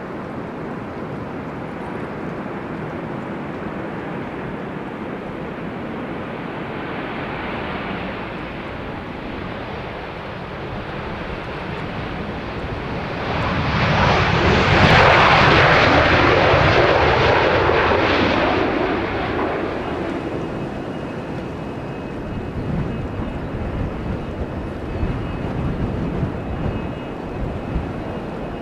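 Jet airliner noise from a Boeing 737-800's CFM56 engines: a steady rush that swells to a loud roar about halfway through as the airliner rolls along the runway, then dies away over several seconds. Near the end a steady high whine joins in from the next jet on approach.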